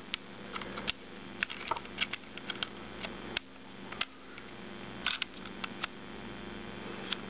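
Irregular small metal clicks and light scrapes of a Ruger Mark I pistol's parts being handled and fitted together during reassembly.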